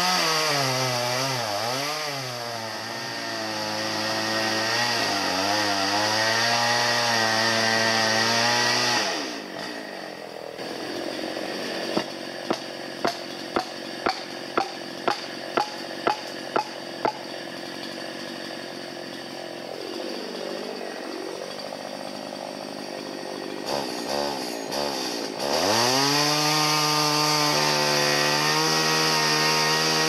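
Two-stroke chainsaw cutting the felling notch, its pitch wavering under load, then dropping to idle about nine seconds in. While it idles, about ten sharp blows, roughly two a second, drive in the felling wedge. Near the end the saw revs back up to full throttle for the back cut.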